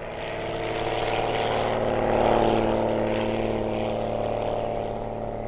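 Single-engine propeller light plane at full take-off power, its engine and propeller giving a steady, even-pitched drone. It grows louder to a peak a little over two seconds in, then fades as the plane lifts off and climbs away.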